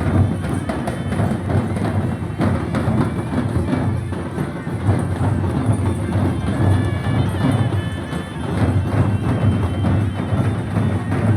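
Nagara kettle drums beaten in a fast, driving rhythm with bronze cymbals (kansi) clashing along, playing folk dance music.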